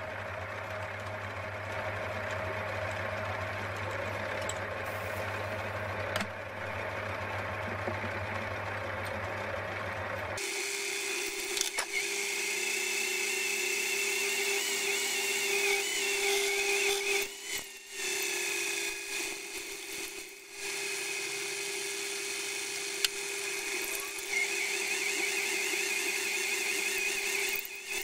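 Small metal lathe running while a drill fed from the tailstock chuck bores down the centre of a cast inlet manifold. It makes a steady machine whine that changes character abruptly about ten seconds in, with two brief dips later on.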